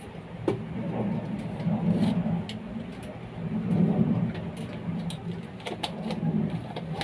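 A steady low mechanical rumble, like an engine, swells twice, around two and four seconds in. Over it come a few light clicks of a spoon against a jar and plate.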